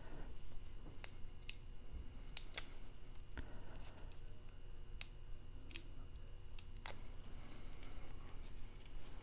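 Cardstock pieces being handled and pressed into place by hand, giving scattered light clicks and taps over a faint background hum.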